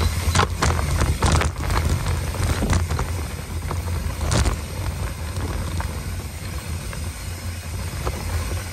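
Mountain bike riding fast down a dirt trail: a steady low rumble of tyres on dirt and wind over the microphone, with sharp clatters as the bike hits bumps, several in the first couple of seconds and a strong one about four and a half seconds in.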